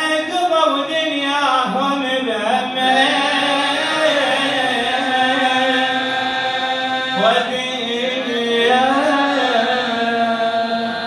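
A radood's male voice chanting a Shia mourning elegy (latmiyya) in long, drawn-out, wavering melodic lines.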